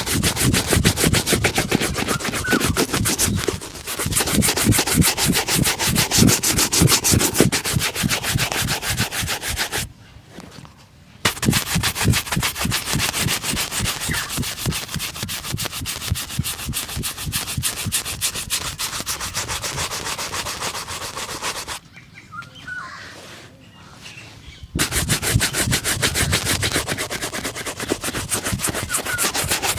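A leather shoe being buffed briskly with rapid back-and-forth rubbing strokes during a shoe shine, stopping briefly twice.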